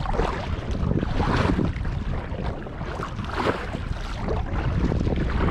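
Kayak paddle strokes splashing through choppy sea water about once a second, with wind buffeting the microphone and water slapping the hull.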